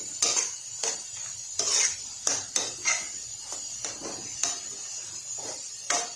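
A cooking utensil stirring chicken in a pan, scraping and clinking against the pan about twice a second at an uneven pace.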